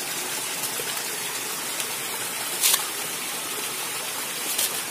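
Shallow forest stream running over leaves, sticks and stones: a steady rush of water. Two brief sharp clicks sound through it, one a little under three seconds in and a fainter one near the end.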